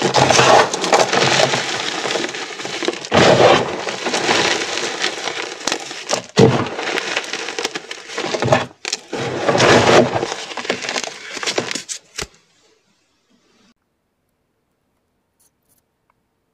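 Hands squeezing and crumbling a heap of crushed dyed gym chalk: a dense gritty crunching that swells with each squeeze. It stops suddenly about twelve seconds in, leaving near silence.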